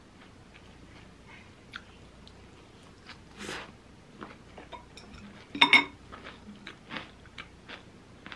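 Someone eating a chicken-mayo rice bowl: quiet chewing with small clicks of wooden chopsticks and a spoon against a ceramic bowl. A little over halfway through comes a louder, short clatter with a brief ring as the utensils knock on the bowl.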